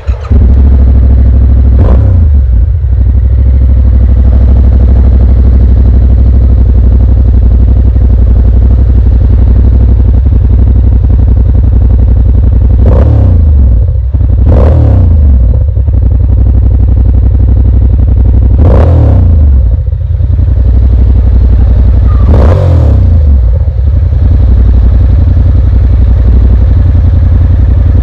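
Yamaha MT-07's 689 cc parallel-twin engine idling loudly through a Yoshimura muffler, with about five quick throttle blips that rise and fall in pitch, two of them close together near the middle.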